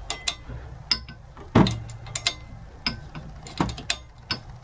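Nut being turned by hand on a threaded rod, drawing a star nut down inside a bicycle fork's steerer tube: irregular metallic clicks and ticks, with one louder knock about a second and a half in. The star nut's wings are dragging against the bare metal inside the steerer, with a lot of friction.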